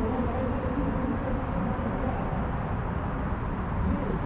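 Steady downtown city background with an even low rumble and no distinct events.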